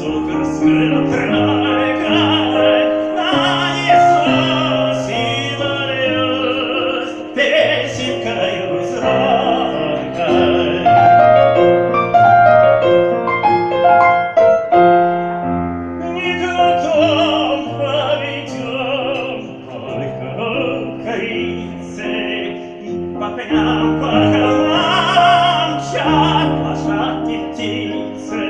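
A song with piano accompaniment, the melody sung in an operatic style with strong vibrato.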